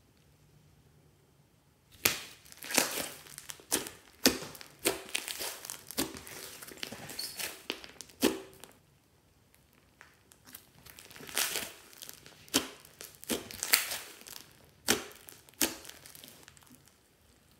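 Hands kneading and squeezing fluffy slime studded with foam beads: irregular sticky, crackly squishes in quick runs. They start about two seconds in, pause briefly around the middle, pick up again and die away near the end.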